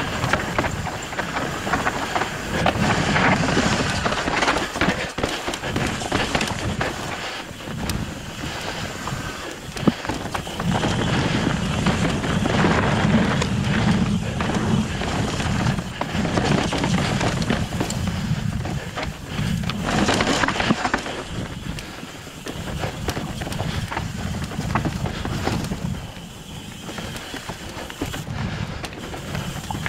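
Mountain bike ridden down a rocky trail: tyre noise over rock and dirt, with the bike rattling and knocking over bumps and the noise rising and falling with speed.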